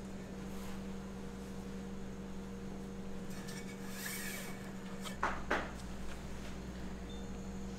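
A steady electrical hum, with a short hiss about four seconds in and two sharp clicks a moment later.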